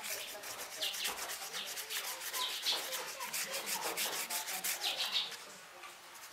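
Paintbrush scrubbing back and forth on wet-painted paper: a quick, even scratchy rhythm of several strokes a second, dying away near the end.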